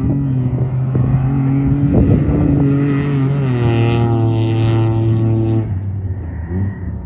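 Off-road race truck engine revving hard as the truck passes, with a short burst of noise about two seconds in. The engine pitch climbs about halfway through and holds high, then cuts off abruptly near the end.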